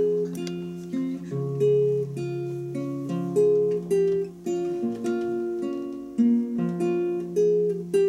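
Two nylon-string classical guitars played together, plucking chords and single notes that are left to ring and fade, with a fresh pluck about once or twice a second.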